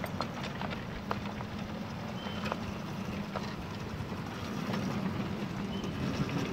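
A 7¼-inch gauge miniature railway train running, with a steady low motor hum and scattered clicks and knocks from the wheels on the track, plus a few short high squeaks.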